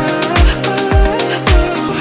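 Background music: an instrumental stretch of a pop song, a steady kick-drum beat about twice a second under held chords, with no singing.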